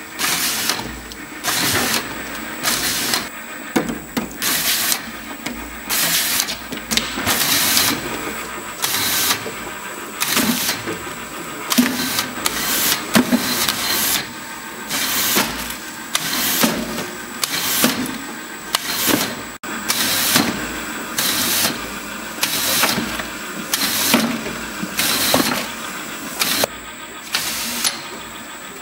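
Automatic labelling machine for cylindrical bottles running, its conveyor and applicator making a steady mechanical sound. A short hiss comes about once a second as the bottles pass through.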